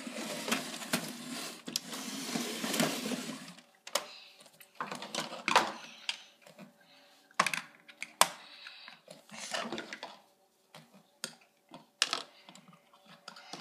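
Plastic dolls and dollhouse furniture being handled on a hardwood floor: a rustle of handling for the first few seconds, then scattered light clicks and taps as pieces are set down and moved.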